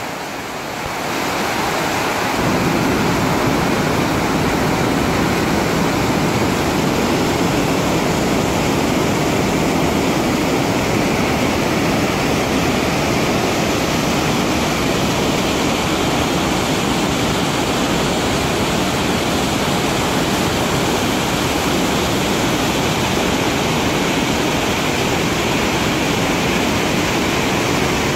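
Mountain creek rushing in whitewater cascades over boulders: a loud, steady rush of water, a little softer for the first couple of seconds.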